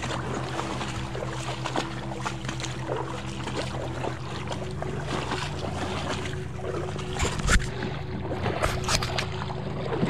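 Shallow creek water rippling and splashing along an inflatable packraft's hull as it floats, with scattered small knocks and scrapes and a couple of louder knocks near the end.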